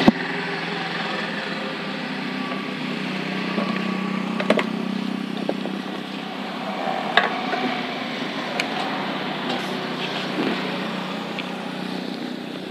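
Bajaj Avenger 160 Street's single-cylinder engine idling steadily, with a few short sharp clicks and knocks over it.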